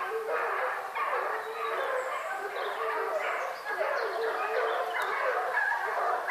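A pack of hunting dogs baying without a break, several voices overlapping with yips mixed in: the sound of the pack giving tongue on a wild boar.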